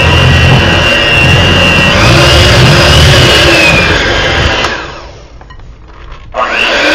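White electric hand mixer running, its beaters working through thick brownie batter in a glass bowl; the motor whine dips and rises as the beaters labour. It drops off about five seconds in and starts up again a second and a half later with a rising whine.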